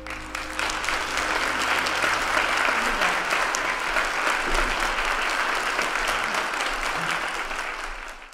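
Congregation applauding, the clapping starting as the last held note of the music dies away and building within about a second, then holding steady.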